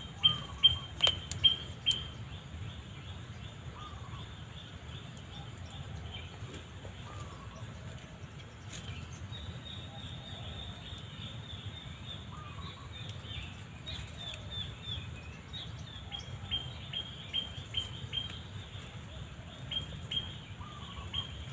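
A wild bird calling with short high notes, about two a second, in runs that fade around two seconds in and pick up again from about nine seconds. A faint lower call comes now and then, over a low steady rumble.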